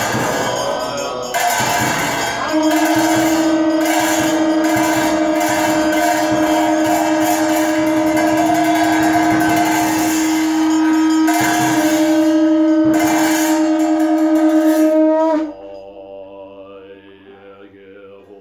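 Tibetan monastic ritual music: long held horn notes sounded together with repeated percussion strikes. The music stops suddenly about 15 seconds in, and the monks' soft recitation goes on.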